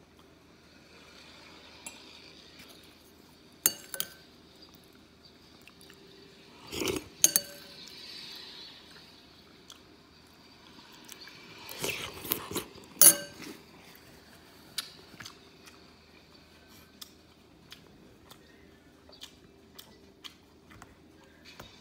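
Metal spoon clinking against a soup bowl while eating: a handful of sharp clinks, the loudest about thirteen seconds in, with fainter ticks between.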